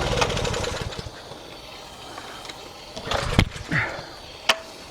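Briggs & Stratton 163cc single-cylinder engine on a pressure washer, running briefly on starter fluid and then winding down and dying about a second in. Running only on starter fluid points to a fuel-delivery problem in the carburetor. A few knocks follow, and a sharp click comes near the end.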